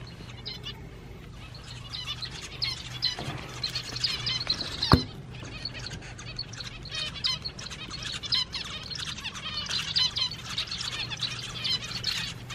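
A flock of small aviary finches chirping and calling over one another in many short, high calls. A single sharp click about five seconds in is the loudest sound, over a steady low hum.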